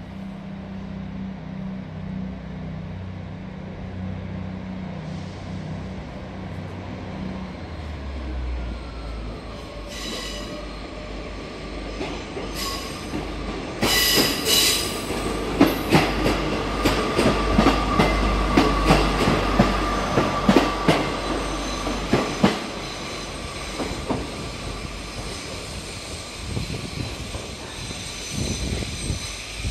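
A train running through the station: a low hum gives way to a deep rumble, then from about ten seconds in the wheels clatter over rail joints and pointwork in a fast run of sharp clicks, with a thin steady wheel squeal over them. The clatter is loudest in the middle and dies down after about twenty-two seconds.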